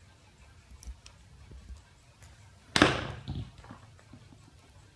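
Faint clicks and scratches of a knife blade picking at the tape wrapped around a small transformer's windings, with one louder brief scraping rustle about three seconds in.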